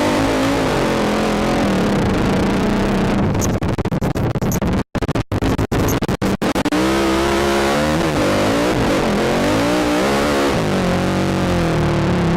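ATV engine revving up and down under load as the quad is ridden, close to the rider, over a steady rushing noise. The sound drops out for split seconds several times around the middle.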